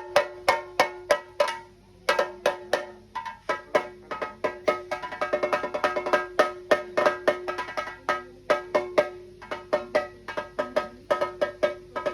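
Ritual Theyyam percussion music: fast, sharp drum strokes in a driving, uneven rhythm, several a second, over a steady held note.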